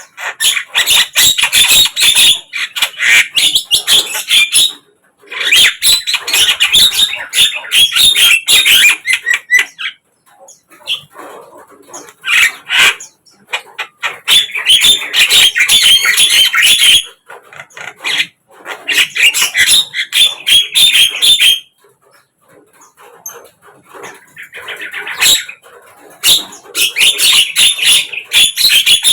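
Javan myna (jalak kebo) singing: loud bouts of rapid, dense chattering calls, each lasting a few seconds, separated by short pauses.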